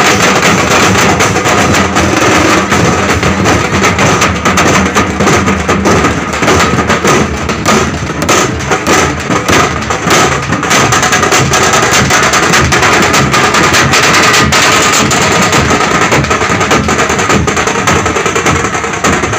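Very loud music with dense, continuous drumming.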